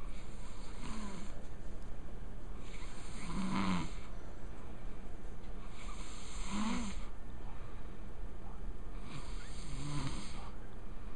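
A man snoring in his sleep: four long snores, about three seconds apart, each a low rasp with a hissy rush of breath.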